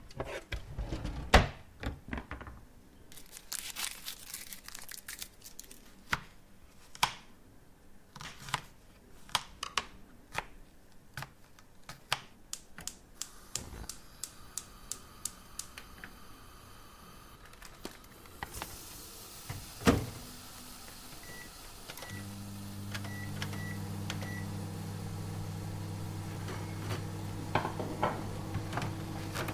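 Kitchen sounds: a run of sharp clicks and clatters, like dishes and utensils being handled. About twenty seconds in comes a loud thump, then a few short keypad beeps, and then a microwave oven starts and runs with a steady hum.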